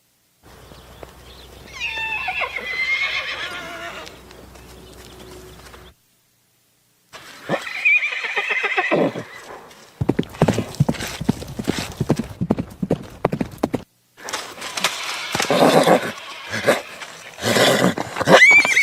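Horse whinnying in several separate neighs whose pitch falls away, then hooves clip-clopping in a run of sharp knocks, then more hoofbeats and a rising neigh near the end. The recordings are cut together with brief silent gaps between them.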